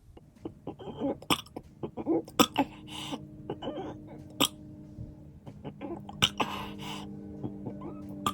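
A man burping repeatedly in short bursts, with sharp clicks between them. From about three seconds in, steady background music tones sit underneath.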